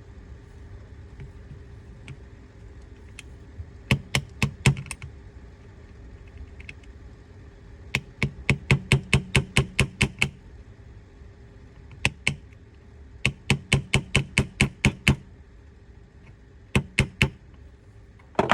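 Quick runs of sharp metal taps on a toolkit bit used as a makeshift punch, driving a thin roll pin flush into an airsoft rifle's receiver: a few taps, then a long run at about six a second, then shorter runs.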